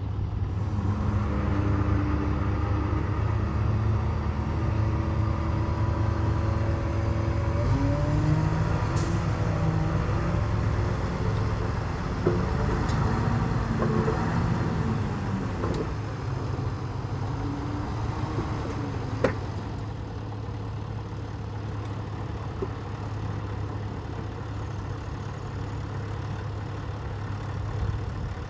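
Dump truck engines running steadily, with the engine pitch stepping and gliding up and down for a stretch in the first half as the trucks work. A single sharp click comes about two-thirds of the way through, and after it the engines settle to a steadier, slightly quieter run.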